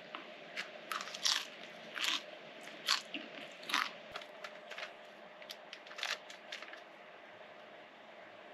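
A person chewing a mouthful of salt-and-vinegar kettle chips tossed with sub toppings: a run of crisp crunches, one or two a second, that thin out and stop about six and a half seconds in.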